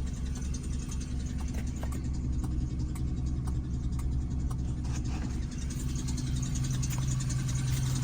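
Suzuki APV's 1.6-litre four-cylinder petrol engine idling unevenly, with irregular knocks and ticks over its steady hum. The knocking and misfiring come from a cracked cylinder head.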